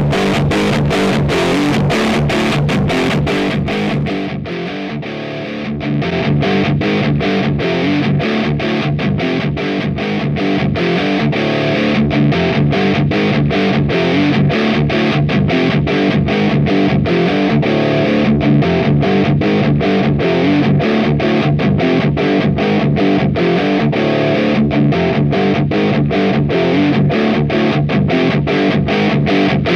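Heavily distorted electric guitar played through an AMT Bricks R/S Lead 12AX7 tube preamp: a high-gain metal tone with short, clipped, tightly stopped chords in a fast rhythm.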